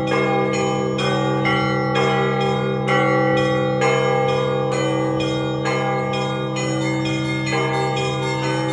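Russian Orthodox church bells of a 32-bell belfry ringing to call the faithful to a service. Smaller bells are struck about twice a second over the steady hum of the big bells.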